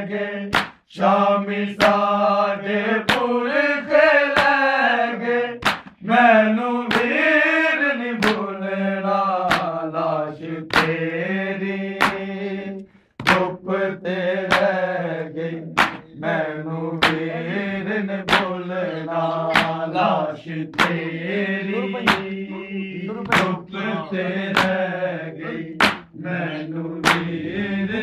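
Men chanting a Punjabi noha, with a steady beat of sharp matam slaps, palms striking chests, a little more than once a second keeping time under the voices.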